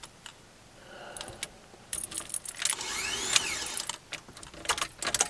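Keys jangling and clicking at the ignition of a Porsche 944 with a swapped-in 07K five-cylinder, with no engine cranking: the starter solenoid is not engaging. Past the middle, a brief whine sweeps up and down in pitch.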